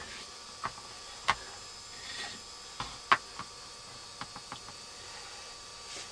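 Scattered light clicks and taps of a bottle and a plastic tray being handled while tinning solution is poured over a circuit board, with a quick run of four small taps a little past four seconds in.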